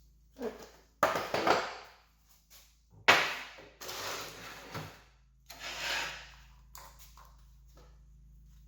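Workshop handling noise on a workbench: three short bursts of knocking and scraping, each starting with a sharp knock, the loudest about three seconds in.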